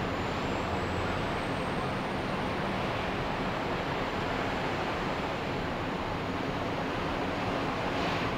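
Ocean surf on a beach: a steady, even rush of waves.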